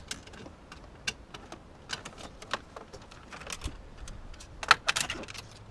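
Plastic clicks and rattles as a Subaru Forester's center dash bezel and its HVAC control cables are worked loose and pulled out. The clicks are scattered and irregular, with a quick run of louder snaps near the end.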